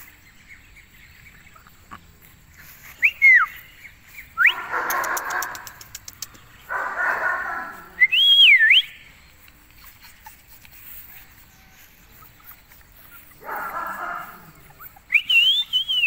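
A person whistling in short gliding notes, several times, to call a litter of month-old puppies, with three rougher, noisier bursts of sound in between.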